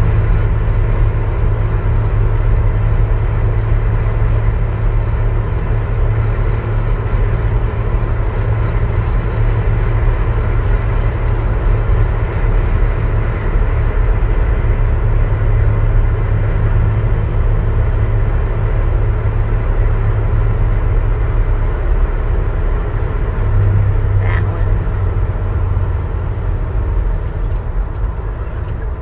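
A 1967 Chevrolet pickup truck driving along, its engine and road noise making a steady low rumble inside the cab, with a brief swell in the rumble late on.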